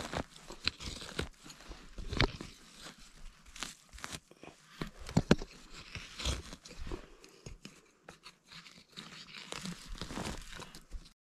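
A pointed metal tool digging and prying through pine-needle duff and soil to unearth a matsutake mushroom: irregular crunching, scraping and crackling of needles and dirt, cutting off suddenly just before the end.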